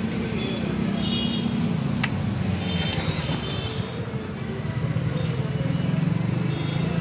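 A motor vehicle engine running steadily nearby, easing off about halfway and building again, with a sharp click about two seconds in.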